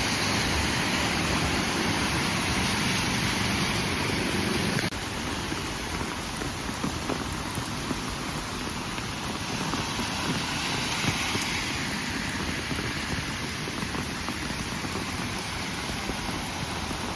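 Heavy rain falling in a steady, dense hiss, dropping slightly in level about five seconds in.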